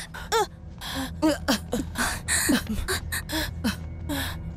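A quick run of short gasps and sharp vocal cries from several people, about a dozen in a few seconds, some as breathy puffs and some as brief pitched shouts.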